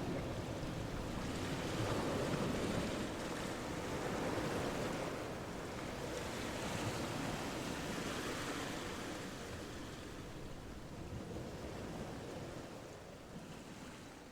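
Waterfall rushing in a steady roar of falling water, with some wind on the microphone, fading out near the end.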